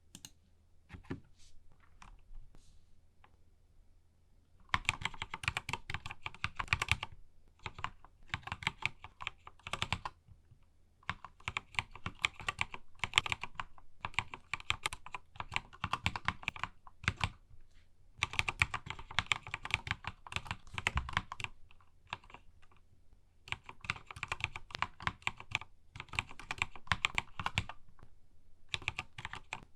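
Keychron K2 mechanical keyboard fitted with Akko Matcha Green switches being typed on: a few single key presses at first, then fast runs of key clicks about five seconds in, broken by short pauses.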